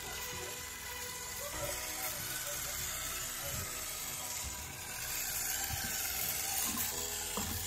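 A 1/24-scale RC crawler's Mofo RC pancake motor and gear drivetrain whirring and ratcheting at slow crawl speed as the truck climbs steps and crosses a log bridge, with a few light knocks of tyres and chassis on the obstacles.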